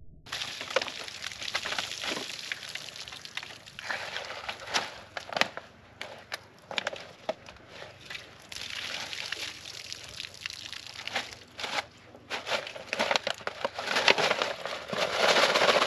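Shot-up plastic gallon water jugs, partly frozen, being handled and pulled apart: irregular crinkling and crackling of the plastic, busier and louder near the end.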